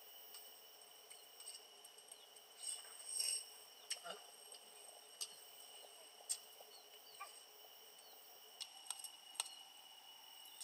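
Steady high-pitched drone of crickets or other insects under a quiet scene, with a few soft scattered clicks and taps.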